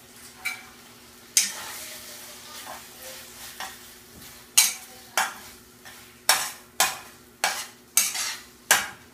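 A spoon scraping and knocking against a frying pan as a corned beef mixture is stirred over the heat, each stroke followed by a brief sizzle. The strokes come irregularly at first, then about twice a second near the end.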